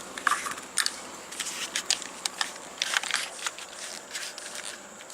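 Light, irregular clicks and knocks of PVC pipe sections being handled and pulled apart on a homemade kayak cart.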